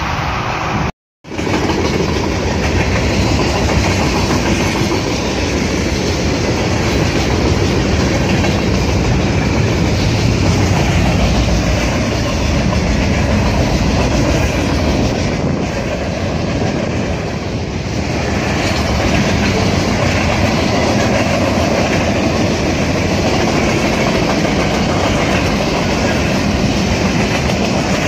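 A CN freight train of lumber-loaded flatcars and covered hopper cars rolling past at close range, its wheels making a loud, steady noise on the rails. The sound cuts out completely for a moment about a second in.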